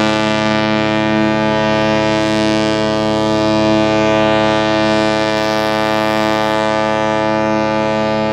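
Ship's horn sounding one long, steady blast, a deep held chord, as the ship departs.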